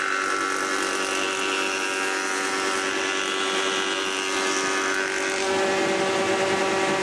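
Logosol H410 jointer-planer running with a steady whine while a short board is fed by hand across its cutterhead to be face-jointed. The tone shifts slightly near the end.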